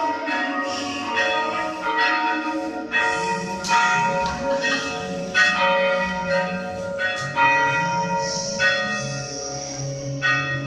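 Church bells pealing: several bells of different pitch struck one after another, a new stroke about every second, each ringing on under the next.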